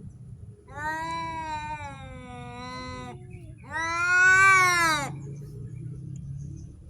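A cat's territorial yowling: two long drawn-out yowls, the first sliding slowly down in pitch, the second louder, rising and then falling.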